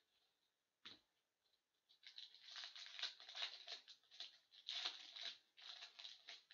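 Foil wrapper of a hockey card pack being torn open and crinkled by hand, with rapid crackling and tearing that starts about two seconds in after a single soft click.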